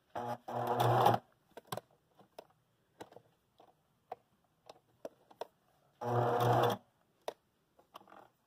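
Domestic electric sewing machine stitching a folded hem in two short runs: one about a second long at the start, another just under a second about six seconds in. Small clicks from handling the fabric and machine come between the runs.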